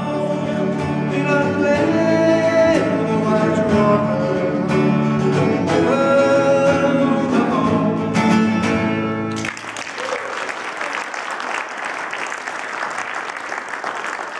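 A man singing a song while strumming an acoustic guitar, with a second plucked string instrument playing along. The song ends abruptly about two-thirds of the way in, followed by applause.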